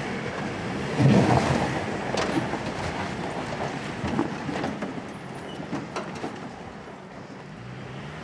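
Jeep Wrangler towing a camper trailer, its engine working under load up a steep rocky climb, with knocks and rattles from the tyres and trailer over the rocks. It grows fainter as the vehicle climbs away.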